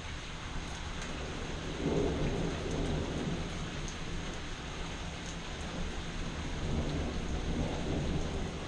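Steady rain with thunder rumbling low, swelling about two seconds in and again near the end.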